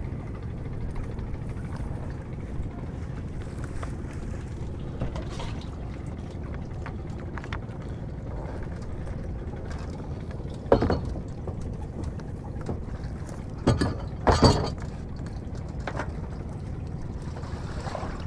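Small fishing boat on a river: a steady low rumble with water sloshing. It is broken by a few sudden splashes or knocks, one about 11 seconds in and two close together near 14 seconds.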